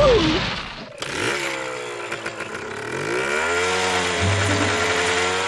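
Chainsaw engine running, a cartoon sound effect. Its pitch dips and then rises steeply about halfway through as it revs up, and it holds high.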